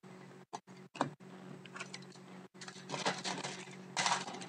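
Trading cards being handled, then a foil card-pack wrapper crinkling and crackling as it is torn open, loudest near the end. A steady low hum runs underneath.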